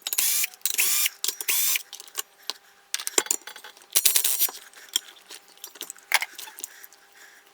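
Hand tools and small metal engine parts clinking and knocking while a brush cutter's two-stroke engine is taken apart, with two louder rasping bursts in the first two seconds.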